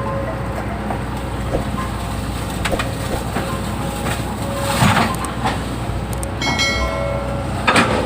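Hydraulic excavator's diesel engine running steadily while digging, with metallic clanks and knocks from the bucket and boom, loudest about five seconds in and just before the end. A brief high whine comes in about six and a half seconds in.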